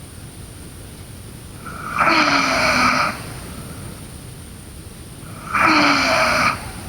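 A sleeping girl snoring: two snores of about a second each, roughly three and a half seconds apart, each dropping slightly in pitch.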